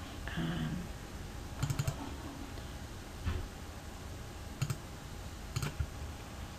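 Computer mouse buttons clicking: quick double-clicks and triple-clicks, a cluster about two seconds in and two more pairs near the end, with a soft low hum-like sound just after the start.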